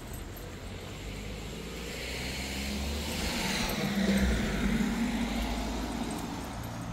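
A van driving past on the street, its tyre and engine noise swelling to a peak about four seconds in and then fading.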